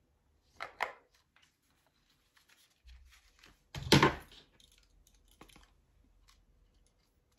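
Fluorocarbon leader line being pulled off its plastic spool and handled: faint clicks and rustles, with a louder knock about four seconds in as the spool and pliers are picked up.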